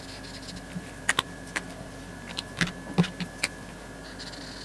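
Felt-tip markers being swapped: a handful of short, sharp plastic clicks as markers are capped, uncapped and set down, followed near the end by the faint scratch of a marker tip on paper.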